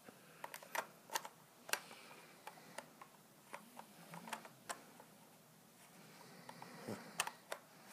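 Faint, irregular clicks and ticks, about a dozen, of an adapter ring being pressed and turned against a camera body's bayonet lens mount while hunting for the alignment mark.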